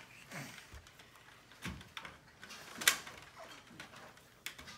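Plastic toy parts clicking and knocking together as pieces of a toy ark are handled and fitted, a few scattered clicks with one sharp click about three seconds in.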